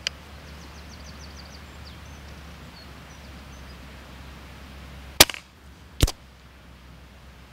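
A silenced .22 Daystate Delta Wolf pre-charged air rifle fires about five seconds in: one sharp shot with a short tail. Under a second later comes a second, slightly quieter sharp crack.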